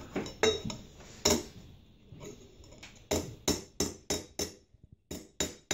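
Hammer blows on a silver vase held over a metal stake, tapping the top of the vase in. There are three strikes early, a pause, then about eight quicker strikes over the last three seconds.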